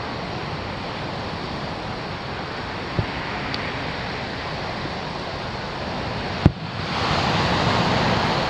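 Distant aerial fireworks shells bursting with two sharp booms over the steady wash of surf on the beach: the first about three seconds in, the second and louder one about six and a half seconds in. A rush of noise swells after the second boom and runs on to the end.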